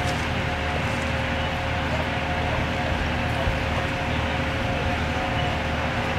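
Fire apparatus engines and pumps running steadily at the fireground: a constant mechanical drone with a steady hum in it.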